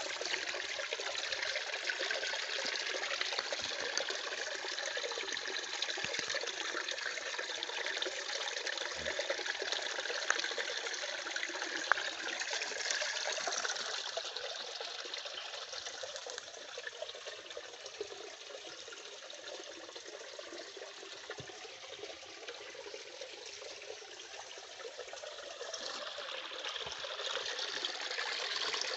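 Waterfall water rushing in a steady hiss, louder at first, softer from about halfway, and swelling again near the end. One sharp click a little before halfway.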